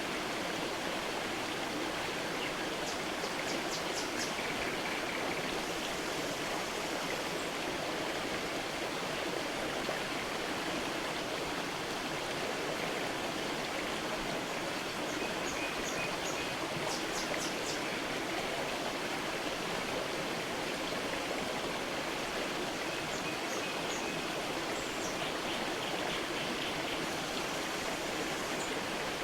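Creek water running steadily over stones, an even rushing. A few short series of high bird chirps sound over it, near the start, around the middle and near the end.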